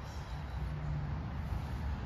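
Steady low outdoor rumble with no distinct event.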